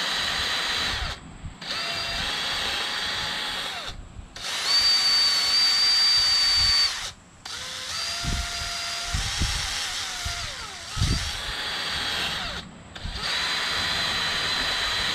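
DeWalt cordless drill running in about five bursts with short stops between them, used to clean up a spark plug. Its whine holds steady in the earlier runs and wavers in pitch during the longer run after the middle.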